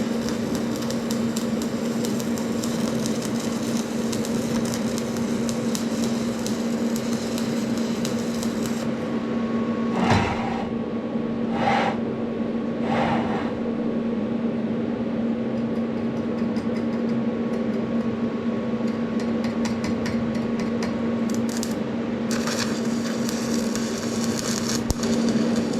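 Arc welding on a cast iron differential carrier: a steady electrical hum under the crackle of the arc. The crackle stops for several seconds midway, when three short scraping sounds come, then starts again.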